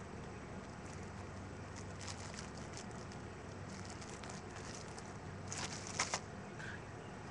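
Plastic fireworks packet crinkling and rustling as it is handled close to the microphone, with a short louder burst of crinkles about six seconds in, over a steady low hum.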